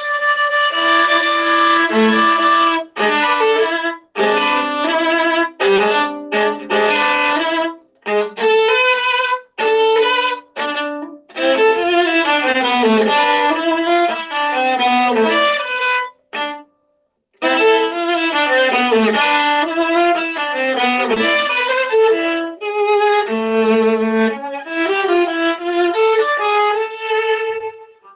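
Solo viola being bowed through a melodic passage of quick changing notes, broken by short pauses and one longer break about two-thirds of the way in. The recording has a crunchy, slightly distorted microphone sound.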